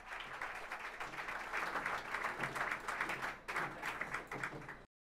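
Audience applauding, a dense patter of many hands clapping, which cuts off abruptly near the end into dead silence.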